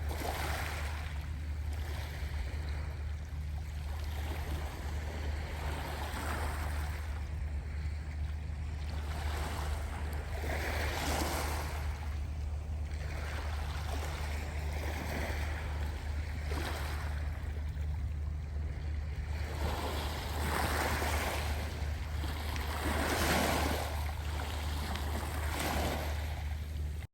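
Sea of Japan waves surging in, one swell of rushing water every two to three seconds, over a steady low rumble.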